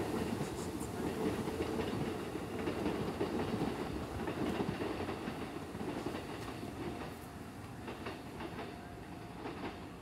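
An electric commuter train running on the tracks below, a steady rumble that grows fainter over the last few seconds.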